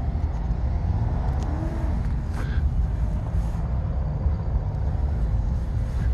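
Steady low rumble of outdoor background noise, with no single clear event standing out.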